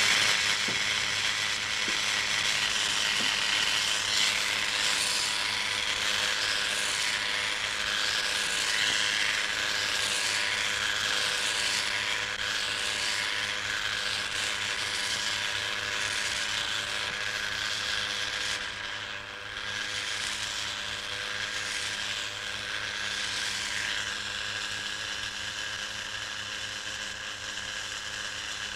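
Corded electric razor buzzing steadily as it is run over a man's cheek and jaw, shaving stubble.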